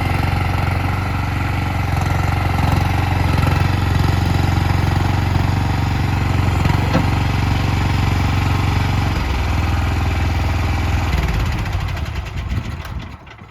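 Future FT36C compact skid steer loader's engine running steadily, dropping to a lower speed about nine seconds in, then shutting off and winding down to a stop near the end.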